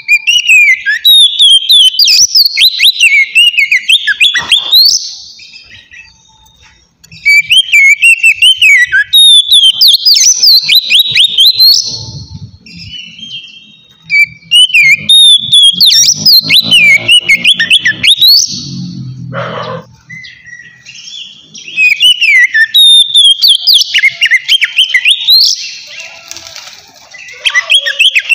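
Oriental magpie-robin (kacer) singing its loud, open 'ngeplong' song: four bouts of rapid whistled and warbled phrases, each a few seconds long, with short pauses between them.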